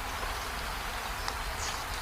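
Steady rain falling as an even hiss, with a few sharper drop ticks. A faint short high chirp comes near the end.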